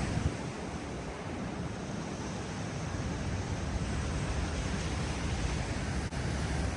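Ocean surf, a steady rushing wash of waves, with wind rumbling on the microphone.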